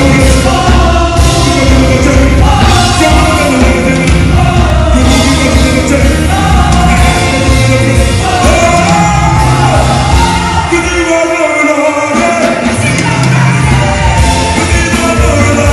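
Loud music with a singing voice over a heavy bass line; the bass drops out for about a second near the middle, then comes back.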